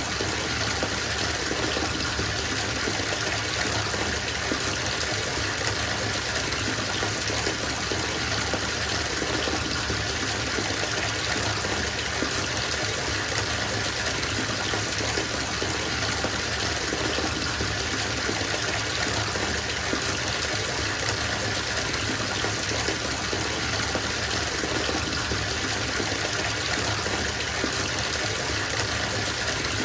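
Bathtub filling from its tap: a steady gush of running water pouring into the tub, unchanging throughout.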